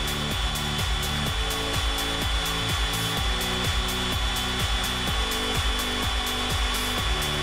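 Background music: a steady pulsing beat with a repeating pattern of notes changing about twice a second.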